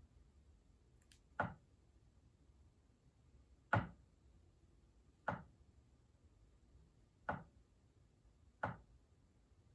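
Five wooden knocks from a grand piano action, one every one and a half to two and a half seconds, as single keys are struck and dropped. The action is out of the piano on a regulating bench, so no strings sound, only the key and hammer thud. The keys are being checked while their springs are set.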